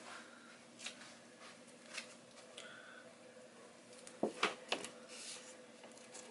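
Handling noise from a self-adhesive strip being peeled and pressed against a wall: scattered light clicks and rustles, with three sharper taps close together about four seconds in, over a faint steady room hum.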